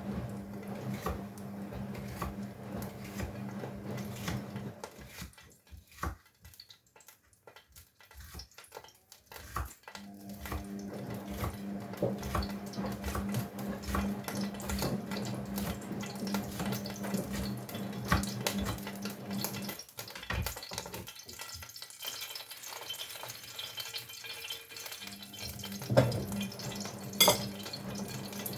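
Kitchen work: pots, dishes and utensils clinking and knocking, over the steady hum of a running washing machine. The hum stops twice for several seconds, and there is one sharper knock near the end.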